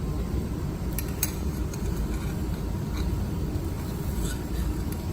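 Steady low machinery rumble, with a few faint sharp clicks about a second in and again near the end.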